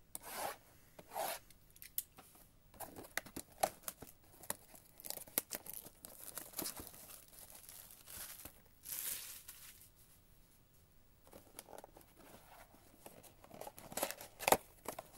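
Plastic shrink wrap being slit with a box cutter and torn off a cardboard trading-card box, crinkling and crackling in many short bursts. Near the end comes the loudest crackling, as the box's cardboard flap is worked open.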